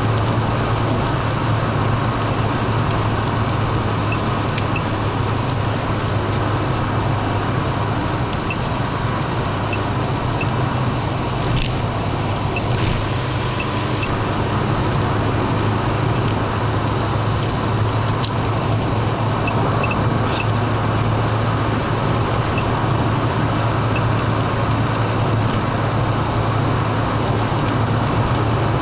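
Steady road and engine noise inside a car cruising on an expressway, with a low, even hum and a few faint clicks.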